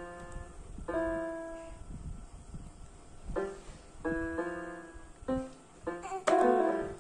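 Casio SA-series mini keyboard played by a baby's hands: clusters of several keys pressed at once at random, about seven uneven chords in turn, each ringing and fading. The loudest cluster comes near the end.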